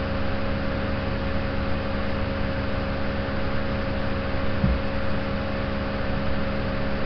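Steady hiss with a low electrical hum underneath, from the recording's background noise, and one soft low bump about two-thirds of the way through.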